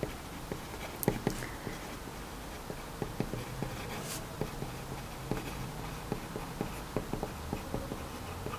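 Pen writing on paper: a soft scratching of the tip with many small, irregular ticks as the letters are formed, a few of them a little louder.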